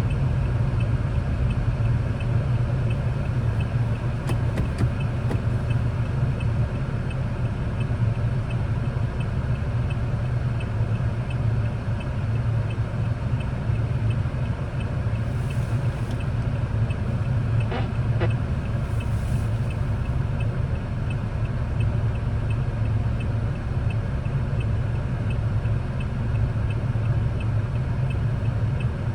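Steady low engine and road hum of a car crawling in slow traffic, heard from inside the cabin, with a faint regular ticking and a few brief clicks.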